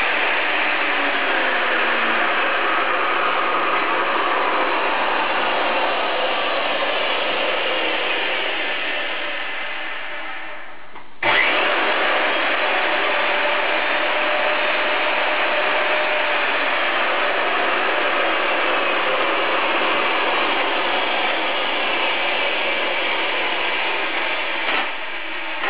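Ridgid 300 pipe threader running, its motor and gear drive making a steady rattling whine. It eases down about ten seconds in, then starts again abruptly a moment later and runs on until a knock near the end.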